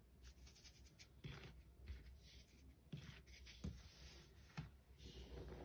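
Faint crunching and brushing of baking soda powder under a hand as it is rubbed and pressed, with a few soft pats.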